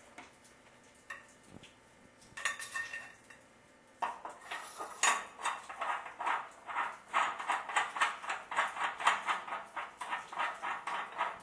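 Metal parts of a copper pipe and brass dielectric union being handled: a few scattered clicks, then from about four seconds in a run of rapid metallic scraping strokes, about four a second.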